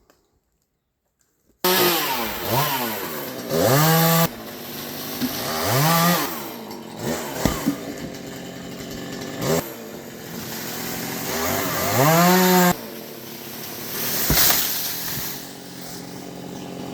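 Gasoline chainsaw cutting into a tree. It comes in abruptly about a second and a half in, and its pitch rises and falls several times as the throttle is opened and eased back.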